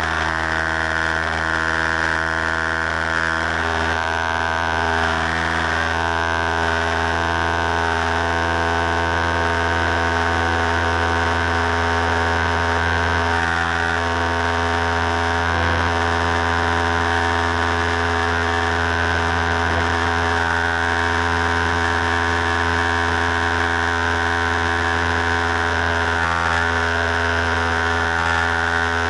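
Single-engine piston propeller aircraft's engine and propeller running at steady high power through the takeoff roll and climb-out, heard from inside the cockpit as a loud, even drone.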